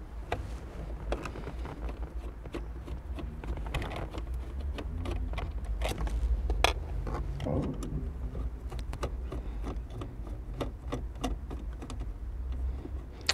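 Hand screwdriver working out the radio's mounting screws in a car dashboard: a run of small irregular clicks and taps of metal on metal and plastic, over a steady low rumble.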